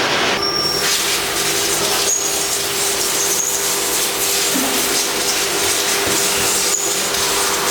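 CNC nesting router cutting a wooden cabinet panel: the spindle runs steadily with a constant hum under a loud continuous hiss of the cut.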